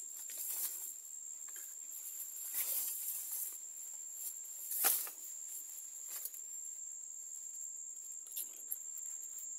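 Bamboo stems and leaves rustling and snapping as they are handled, with scattered light clicks and one sharper crack about five seconds in, over a faint steady high-pitched whine.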